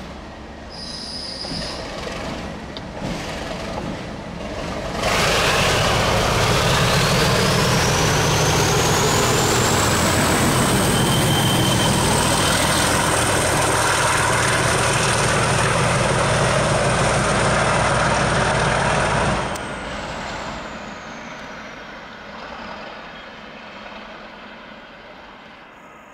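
Class 37 diesel locomotive running light past at close range, its engine working with a high turbocharger whistle. The whistle rises in pitch, holds while the locomotive is loud and close, then sinks as the sound drops away sharply and fades into the distance.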